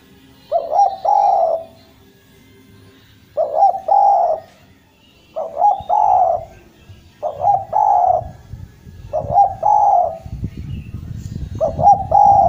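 Spotted dove (derkuku) cooing in six repeated phrases about two seconds apart. Each phrase is a couple of short notes running into a longer coo. A low rumble comes in near the end.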